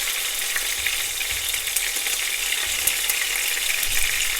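Minced-chicken meatballs frying in hot oil in a pan: a steady sizzle with many fine crackles as they brown.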